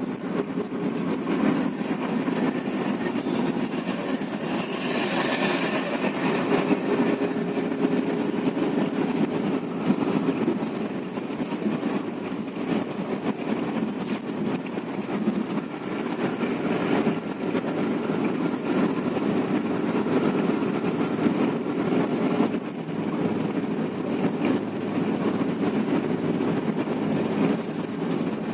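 Intercity bus on the road: steady engine and road noise with no pauses.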